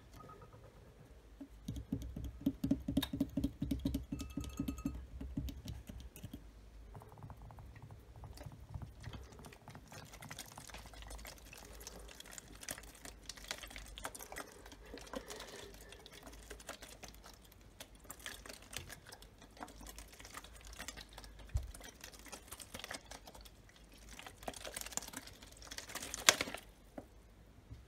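Fast fingernail tapping on a plastic water bottle for a few seconds, followed by quieter, continuous scratching and crinkling of the bottle being handled, with one sharp knock near the end.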